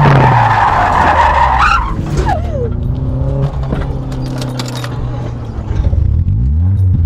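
BMW E36 drift car's engine running hard while its tyres squeal and skid through a slide for about two seconds. The engine then drops in pitch and runs on steadily as the skid ends.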